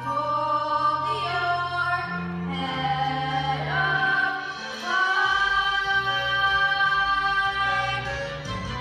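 Music with long held sung notes, gliding between pitches a couple of times, over a low steady bass line.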